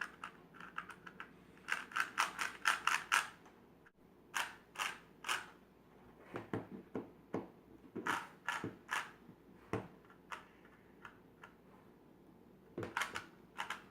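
Rubik's Cube layers being turned by hand, clicking and clacking in quick runs of several turns with short pauses between them.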